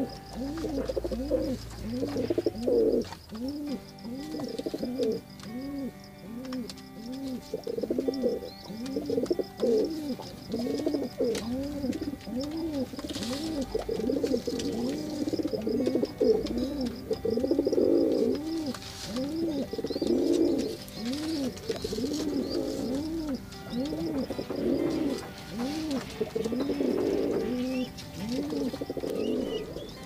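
Domestic pigeons cooing continuously, several birds overlapping. Each coo is a short note that rises and falls, repeating about twice a second.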